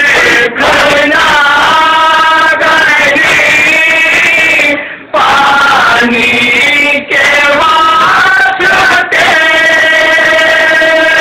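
A group of men chanting a nauha, a Shia mourning elegy, in long held sung lines. There is a brief pause about five seconds in.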